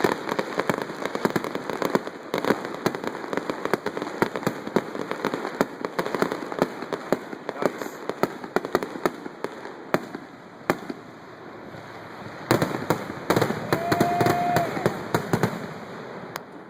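Fireworks display: a dense, rapid string of cracks and bangs that thins out briefly, then a louder cluster of bursts with a short steady tone about two thirds of the way through.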